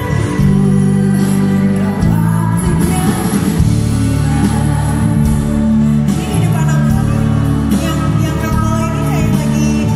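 A woman singing a pop song live into a microphone, accompanied by an orchestra with strings.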